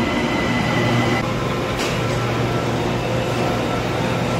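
Bangkok SkyTrain train drawing to a stop at the platform: its steady motor whine cuts off about a second in, followed shortly by a brief hiss, over a continuing low hum as the train stands at the platform.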